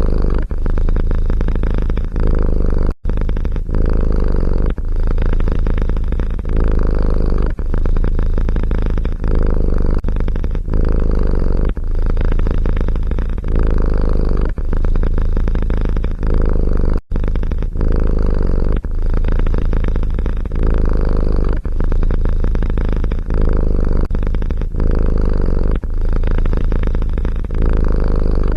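Domestic cat purring loudly and close up, a steady low rumble pulsing in even breaths about every second and a half. It cuts out for an instant twice.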